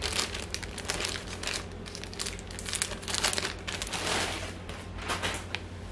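Packaging and fabric rustling and crinkling in irregular strokes as a dress is pulled from its mailer and handled by hand.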